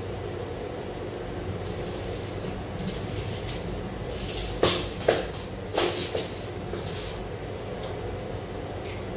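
Steady mechanical hum throughout, with a handful of sharp clicks and knocks about halfway through as a tape measure is pulled out and a straightedge is handled on insulation board.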